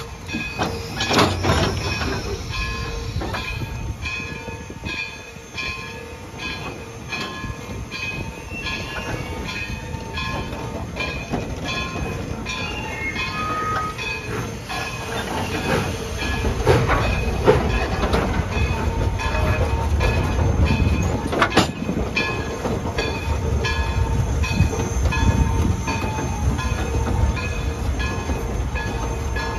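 Narrow-gauge train cars rolling slowly, heard from on board: wheels clacking over the rail joints and a low rumble that grows louder about halfway through. Over it runs a steady ringing with regular strikes, and a sharp clank comes twice.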